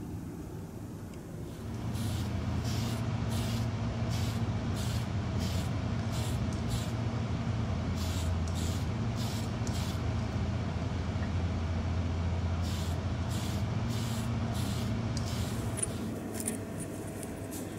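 Paint sprayed onto a plastic model car body in about a dozen short hissing bursts, in groups with brief pauses, over a steady low machine hum of spray-booth or compressor equipment.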